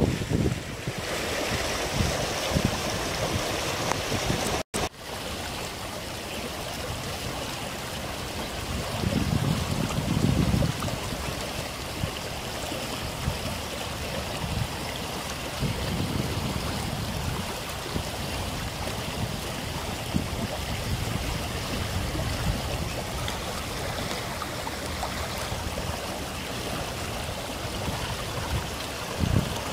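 River in spate after heavy rain, its muddy floodwater rushing steadily over gravel and through clumps of grass. There are occasional low rumbles, and the sound cuts out for an instant about five seconds in.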